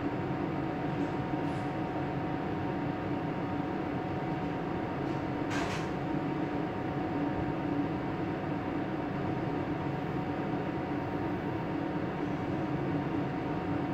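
Steady droning hum of running machinery, even in level throughout, with a brief rustle about six seconds in.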